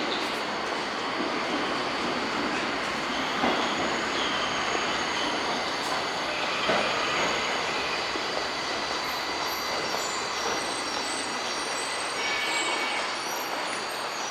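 Tokyo Metro 1000 series subway train running at the platform, a steady rumble with a few light knocks. High, thin wheel squeal comes in about two-thirds of the way through.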